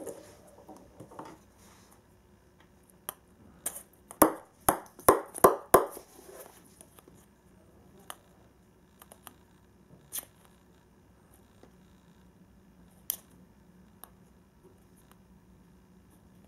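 Small plastic toy balls knocking and bouncing on a wooden floor. About four seconds in there is a run of sharp clicks that come quicker and quicker, like a ball bouncing to rest, and later a few single clicks.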